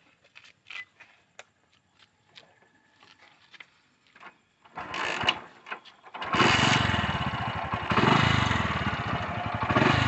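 A small motorcycle engine being started: after a few light clicks it turns over about five seconds in, catches about a second later and keeps running with an even, steady putter.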